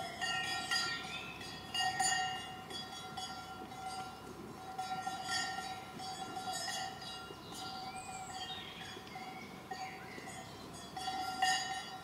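Cowbells on grazing cows clanging irregularly as the animals move, several bells overlapping and ringing on after each stroke. The strongest clangs come at the start, about two seconds in, around five and a half seconds in, and near the end.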